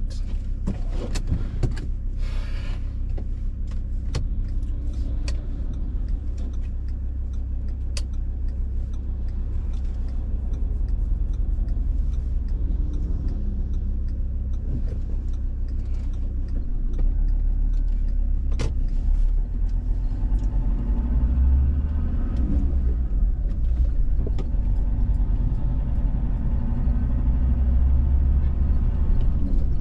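A car driving along a road: a steady low engine and road rumble that gets louder about seventeen seconds in. A few sharp clicks or knocks sound on top, most in the first few seconds.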